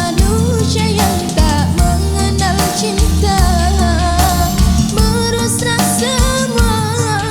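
Indonesian pop song with drum kit, steady bass and guitar under a bending melody line.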